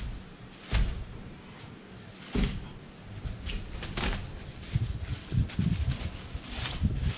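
Two dull thumps, then crinkling and rustling of thin plastic bags as a bag is torn off a roll and opened.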